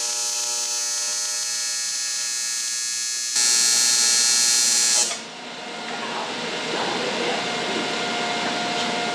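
AC TIG arc buzzing steadily while welding an aluminium fitting into a radiator. It gets louder and harsher for about a second and a half in the middle as the heat is turned up, and the arc cuts off about five seconds in, leaving a steady hiss with a faint hum.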